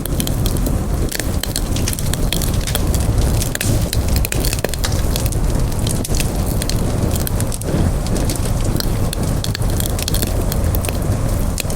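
Wood fire burning with steady crackling and frequent sharp pops over a low rumble of flame.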